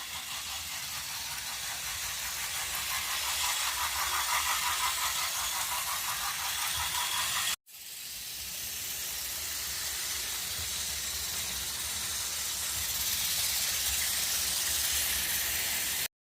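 Battery-powered Plarail toy train running on plastic track: a steady whirring hiss with a low rumble. It breaks off abruptly about halfway through, starts again, and stops suddenly shortly before the end.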